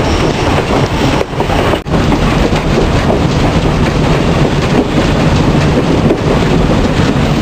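Steam locomotive under way, heard from its cab: a loud, steady rumble and hiss of the running engine and train. The sound drops out briefly about two seconds in.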